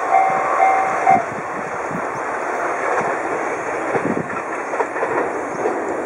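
Japanese railroad crossing warning alarm ringing in repeated tones, about two a second, that stops about a second in. A Sōbu Main Line train's running noise with wheel clacks over the rails carries on as the crossing clears.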